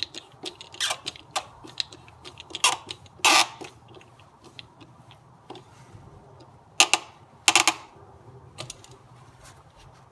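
Screwdriver and metal screw clicking and clinking as the screw is tightened back into the engine's air intake tube, irregular light ticks with a few louder clacks.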